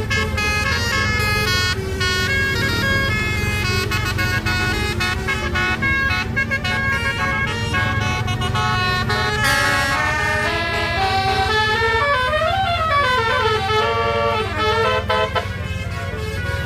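Bus fitted with a Basuri multi-tone 'telolet' horn playing a melody of stepped notes, with a sweeping up-and-down glide about three quarters of the way through, over a steady low drone.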